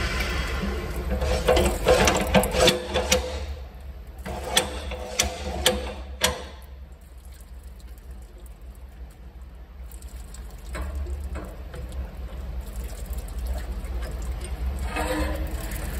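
Grain mill running while crushed malt falls into the container below, over a steady low hum. A run of rattling clicks and knocks comes in the first six seconds; the sound then drops for a few seconds before the steady running noise picks up again.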